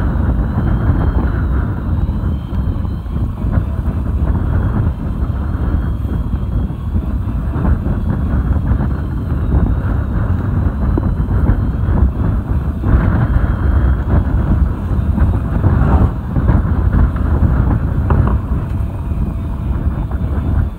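Wind buffeting the microphone over the rush of choppy sea water alongside a fishing boat, a steady, loud rumble. A faint thin whine wavers above it throughout.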